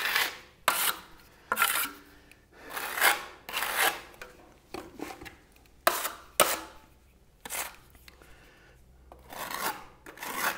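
Steel spatula spreading and scraping gritty travertine decorative plaster over a plastered surface: a dozen or so short rasping strokes with brief pauses between them, a few starting with a sharp click.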